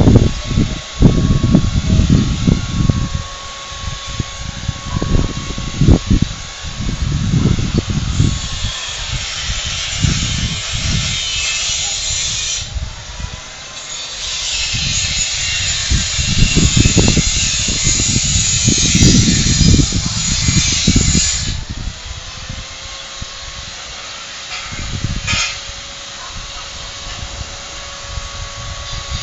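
Wind buffeting the microphone in uneven gusts. A high, steady hiss sets in twice, each time for several seconds, and cuts off suddenly.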